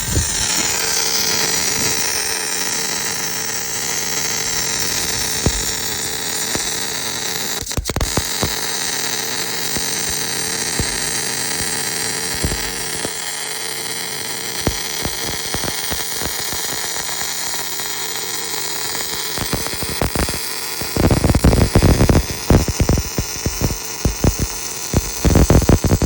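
Steady whirring hiss of a small electric machine motor running, likely a portable line boring machine. From about 21 seconds in, loud irregular crackling bursts start.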